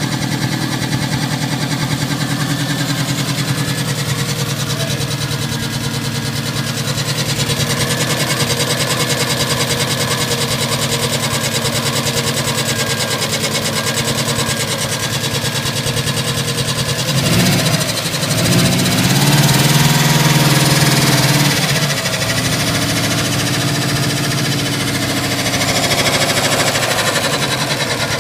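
Subaru WRX turbocharged flat-four engine idling. It is revved up and back down about two-thirds of the way through, with a smaller rev near the end. It makes a noise that the owner suspects may be a spun bearing.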